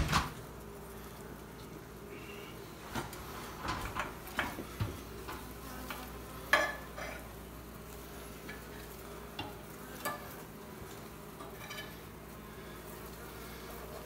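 Scattered light clicks and scrapes from hands and tools working at an opened sheetrock wall cavity around a honey bee colony, over a faint steady low hum.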